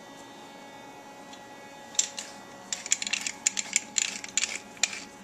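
Hand-turned pepper mill grinding over a pot of raw ground beef: a fast, irregular run of dry clicks and crackles that starts about two seconds in, after a low steady hum.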